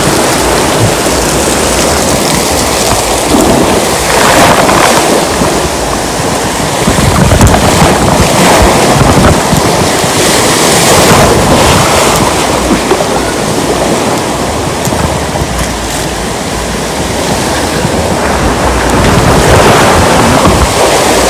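Loud, steady rush and splash of water close to the microphone, swelling a few times, with wind noise on the microphone.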